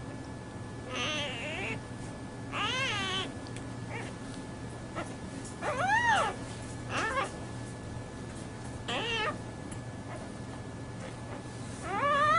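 Young clouded leopard kitten mewing while feeding from a bottle: about seven short, high calls a second or two apart, each rising and falling in pitch, the loudest about halfway through.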